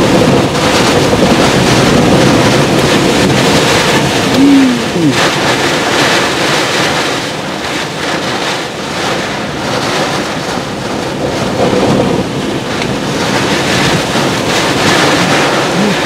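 Tropical-storm winds gusting with driving rain: a loud, steady rush of wind and rain noise. About four and a half seconds in comes a short rising-then-falling tone.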